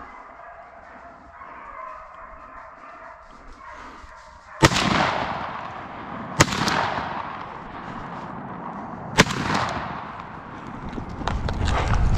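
Three shotgun shots, the first about four and a half seconds in, then about two and three seconds apart, each trailing off in a long echo. Hunting hounds bay before the first shot, and near the end there is the rustle of someone running through dry leaves.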